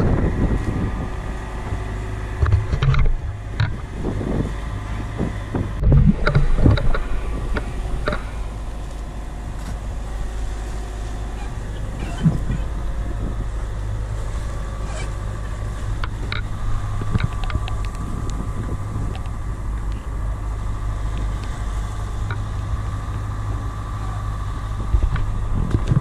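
A sailboat's inboard auxiliary engine running steadily as the boat motors through the sea, a constant low drone with a few thumps in the first several seconds.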